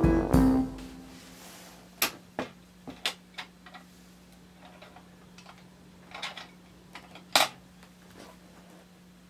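An aluminium mess tin being handled on a wooden tabletop: a scattering of light metal knocks and clinks, the loudest about seven seconds in, over a faint steady hum.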